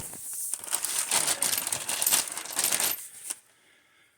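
Metal lug nuts and washers clinking and rattling against each other and the wheel studs as they are handled and fitted by hand, with irregular sharp clicks that stop about three seconds in.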